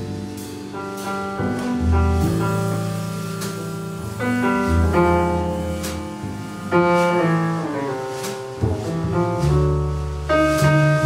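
Instrumental passage of a slow jazz ballad: piano chords and melody over plucked upright double bass, with no voice.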